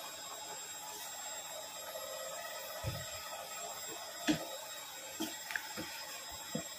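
Pot of fish soup boiling on the stove: a steady bubbling hiss with a few soft pops now and then.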